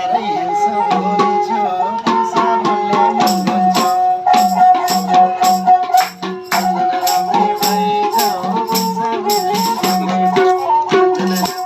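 Nepali folk tune played on a sarangi, its bowed melody held and stepping between notes over a quick, steady percussion beat with a rattling sound.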